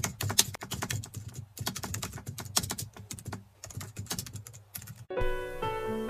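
Keyboard typing, a quick irregular run of key clicks for about five seconds, used as a sound effect as the title text types onto the screen; music with sustained notes comes in near the end.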